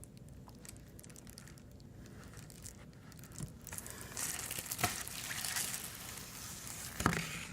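A shipping package being handled: faint crinkling and rustling of the packaging, with a few light taps, beginning about three seconds in.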